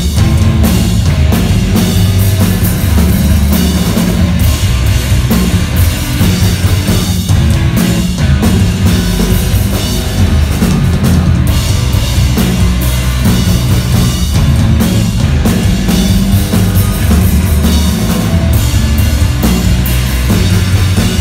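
Live rock band playing loud and without a break: electric guitar, bass guitar and a drum kit with a driving bass drum.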